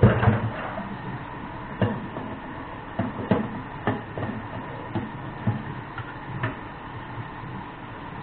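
A run of about ten irregular knocks and clatters, the loudest at the very start, the rest spread over the next six seconds or so.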